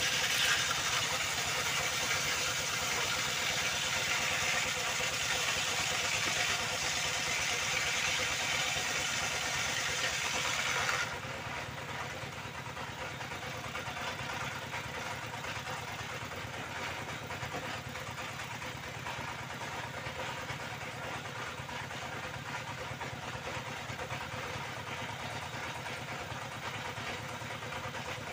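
Motor-driven circular saw cutting used timber, a harsh hissing whine over the steady running of the machine. About eleven seconds in the cutting noise stops sharply, and the saw keeps running free.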